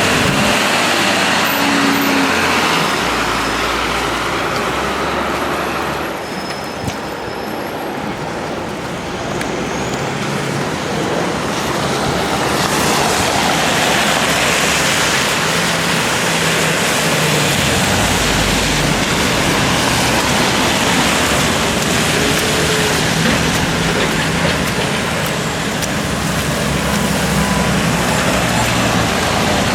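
City street traffic: cars and trucks running and passing, a steady wash of engine and road noise.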